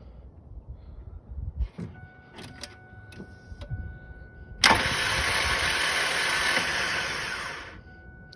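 A 2000 Ford F-150 no-start: about halfway in, turning the key sets off a loud, steady hum like a starter spinning. It lasts about three seconds and fades out, without a click and without cranking the engine over. The hum persists despite a new battery, new solenoid and a bench-tested starter.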